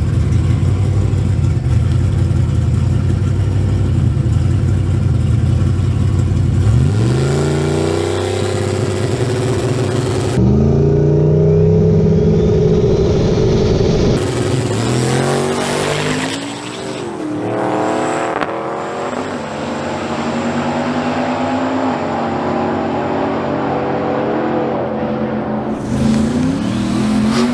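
Drag-racing Chevy Silverado street truck's engine running low and steady, then revving hard and pulling down the strip on a pass. The pitch climbs, drops and climbs again several times as it goes through the gears.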